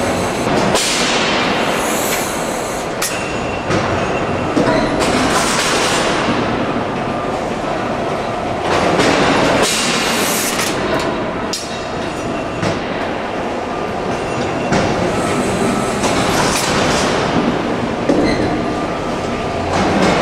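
Replica Boulton & Watt rotative beam engine running, a steady mechanical clatter with a noisy rush that swells about every four seconds.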